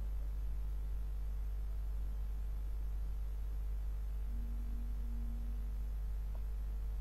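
Steady low hum of background noise, with a faint higher tone about four seconds in that lasts about a second and a half.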